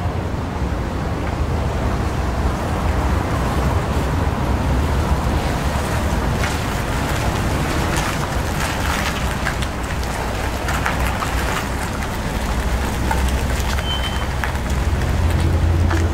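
Vehicle and road-traffic noise: a steady low rumble with scattered faint clicks.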